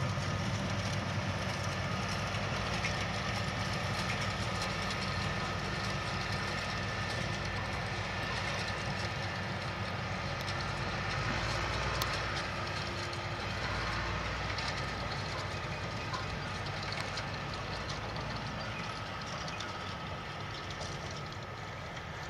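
New Holland T7-series tractor's diesel engine running steadily under load as it pulls a forage wagon across a field. It is loudest about halfway through as it passes and slowly fades after.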